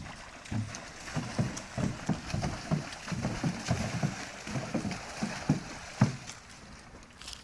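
Horses splashing and sloshing water in a round stock-tank trough with their heads down in it, in irregular splashes with a sharp knock about six seconds in.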